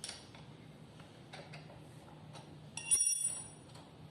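A few faint clicks and taps from hand work on an electric bicycle, then a short metallic clink that rings briefly about three seconds in.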